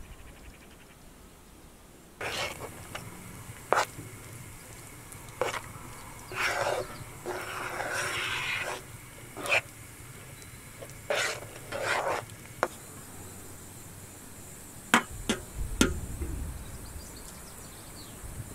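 A spoon stirring and scraping a thick sugar-and-sesame brittle mixture in a metal pan, in a string of separate strokes starting about two seconds in. A few sharp clicks of utensil against metal come near the end.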